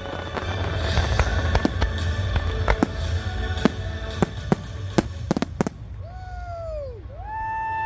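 Aerial fireworks in a show barrage: a rapid run of sharp bangs and reports over a steady low rumble for about six seconds, thinning out toward the end, where a few pitched tones glide up and down.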